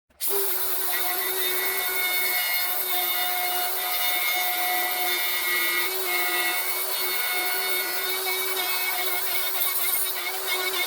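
Electric wood router running at speed, a steady whine holding one pitch over a hiss, as its bit cuts a recess into a block of hard wood.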